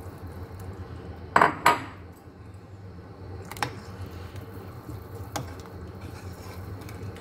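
Ladle clinking against a steel cooking pot while stirring rice into the broth: two sharp knocks about a second and a half in, then two lighter taps later, over a steady low hum.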